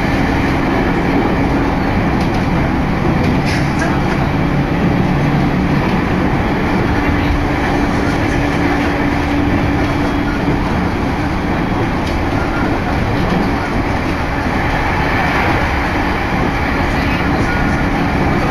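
Takasaki Line train running at speed, heard from inside the carriage: a steady rumble of wheels on the rails and rushing air, with a steady low hum through the first half.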